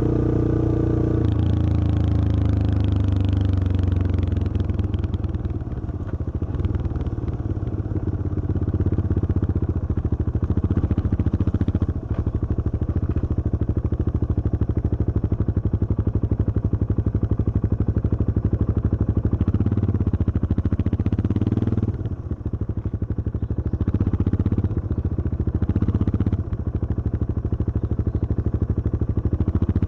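Yamaha XT225 Serow's single-cylinder four-stroke engine running as the motorcycle is ridden, with its pitch dropping about a second in and the sound easing off briefly several times as the throttle changes.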